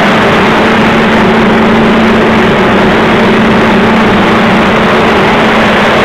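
Corn drying machine's fan running loud and steady: a constant rushing noise with a low hum under it.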